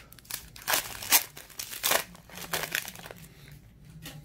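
Foil wrapper of a 2020 Topps Heritage Minor League baseball card pack crinkling and tearing as it is opened by hand, in a quick run of sharp rustles that die down after about three seconds.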